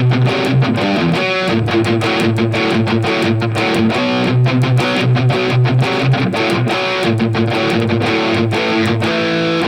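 Electric guitar through a NUX MG-30 amp modeler on a Marshall-style high-gain patch, playing a riff of fast picked notes and rhythmic low palm-muted chugs.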